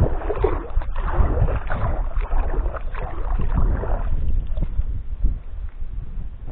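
Inflatable rubber boat being paddled across a duckweed-covered pond: irregular splashing and swishing of water with the paddle strokes, busier in the first four seconds and easing after. A low rumble of wind on the microphone runs underneath.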